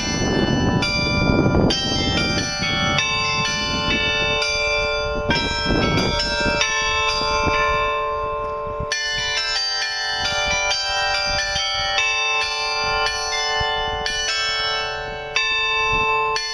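Carillon bells of a glockenspiel clock tower playing a tune, many struck bell notes following one another and ringing on over each other. A rushing noise sits under the bells in the first two seconds and again about six seconds in.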